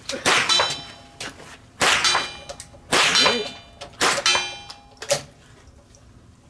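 Metal striking metal: five sharp clangs about a second apart, each ringing on briefly.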